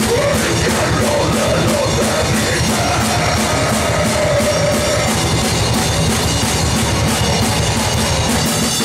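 Live rock band playing loud: distorted electric guitars and bass over a fast, steady drum-kit beat with cymbals. A vocalist shouts a long held line into the microphone during the first half.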